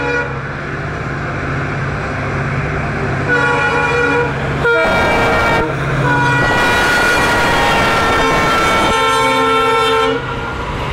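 Indian Railways WDG-4D locomotive, a two-stroke diesel, passing at speed with a goods train while sounding its horn. A short blast comes about 3 s in, then a long blast that falls in pitch as the engine goes by, over the engine's low drone and the loud rush of the locomotive and wagons passing.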